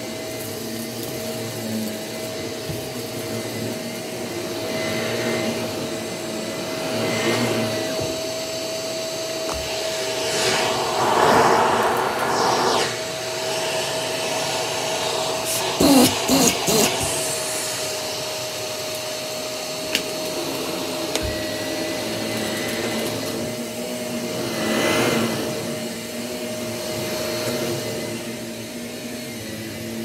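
Shark Navigator upright vacuum cleaner running on carpet, its motor holding one steady pitch and swelling louder twice as it is pushed and pulled. A quick run of sharp knocks about halfway through.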